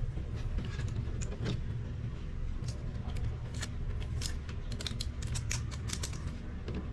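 Many light, sharp clicks and small metallic taps, most frequent in the middle and later seconds, over a steady low rumble.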